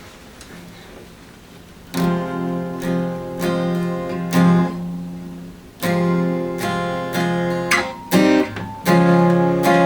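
Acoustic guitar strummed in chords. It starts about two seconds in after a quiet start, with short breaks between phrases.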